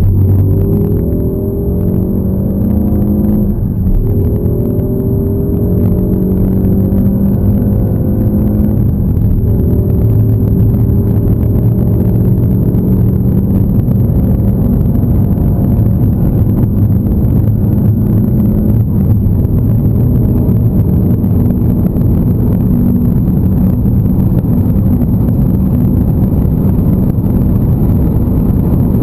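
Peugeot 308 GTi's 1.6 THP turbocharged four-cylinder at full-throttle acceleration, heard from the cabin. The revs climb, drop back at upshifts about four and nine seconds in, then climb slowly through the top gears as road and wind noise build at high speed.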